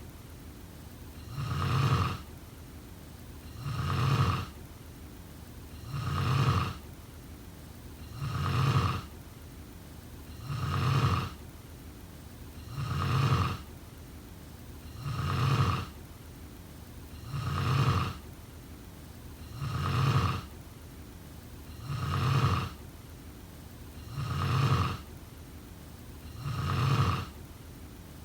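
A person snoring in a steady rhythm, one snore about every two and a quarter seconds, each swelling and fading over about a second.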